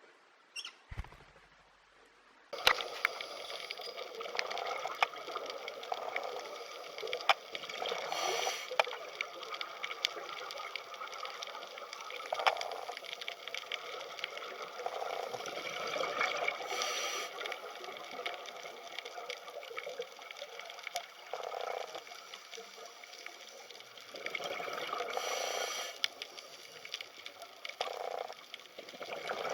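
Water running and splashing, starting suddenly about two and a half seconds in and going on with small swells and spatters.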